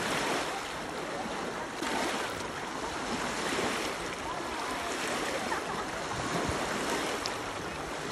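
Small waves washing and lapping in open water, with wind rumbling on the phone's microphone.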